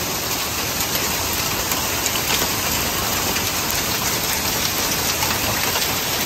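Heavy rain mixed with hail pelting down steadily: a dense, even hiss speckled with many small ticks of hailstones striking.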